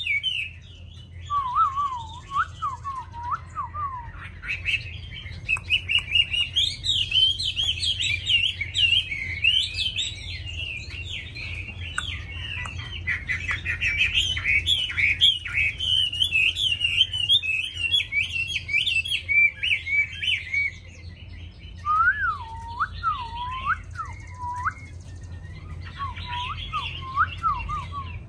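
Chinese hwamei singing a long, fast, varied song of high warbling phrases, broken now and then by lower, slower slurred whistles that rise and fall. There is a brief lull about three-quarters of the way through.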